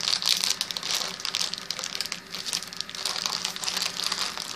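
Crinkly wrapper of a Funko Mystery Mini blind package being worked open by hand: continuous irregular crinkling and rustling.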